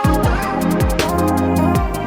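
Electronic music with a steady beat: held synth notes over deep kick drum hits that drop in pitch, with sharp regular percussion on top.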